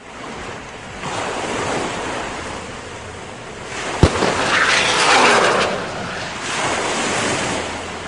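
A rushing noise that swells and fades several times, loudest about five seconds in, with a single sharp click just before that swell.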